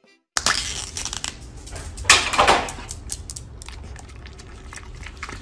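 Crinkling, crunching and clicking of a small plastic food cup handled close up, starting abruptly a moment in, with a louder crunch about two seconds in.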